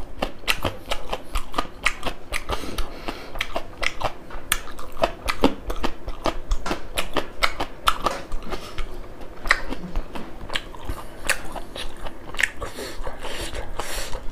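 A man chewing a mouthful of rice and pork, with many wet mouth smacks and clicks in quick, irregular succession.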